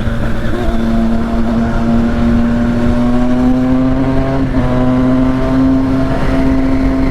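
Triumph Street Triple 675's three-cylinder engine, through a full aftermarket exhaust, held at steady high revs while riding, its pitch creeping slowly upward, with wind rush underneath.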